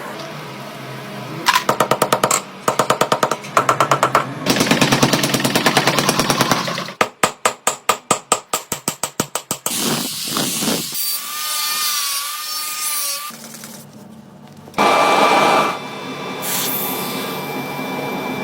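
Metal-workshop power-tool noise in several short cut-together bursts: fast rapid-fire strikes, one run at about five a second, with steady machine noise in between.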